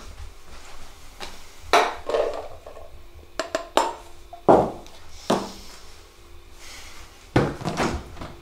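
A saucepan and a bowl knocking together as cooked pasta is served: a string of irregularly spaced clanks with short ringing.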